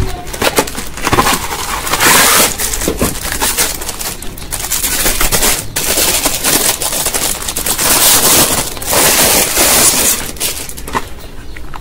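Clear plastic shrink wrap crinkling and crackling as it is handled and peeled off a plastic screen magnifier, with louder stretches of crinkling a couple of seconds in and again near the end.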